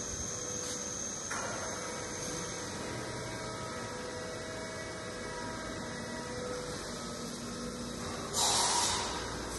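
Steady electrical hum of a powered-up CNC vertical machining center and its cabinets, with several faint steady tones over it. About eight seconds in, a short loud burst of hiss cuts in and fades within about a second.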